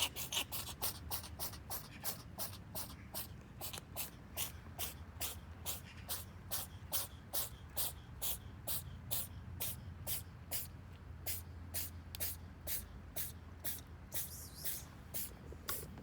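A cat crunching dry kibble, one crisp crunch about three times a second, steady until it stops near the end.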